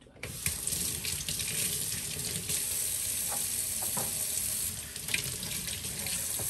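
Kitchen pull-down faucet running into the sink as drumstick (moringa) pods are rinsed under the stream, with a few light knocks from the handling. The water comes on just after the start and shuts off suddenly at the end.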